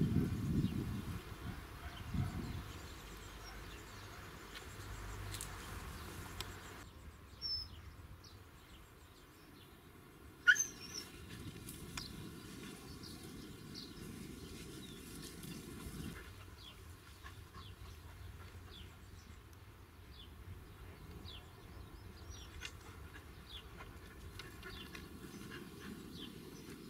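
Outdoor ambience: wind rumbling on the microphone, strongest in the first few seconds, with scattered short bird chirps and one sharper, louder call about ten seconds in. The background shifts abruptly about seven seconds in.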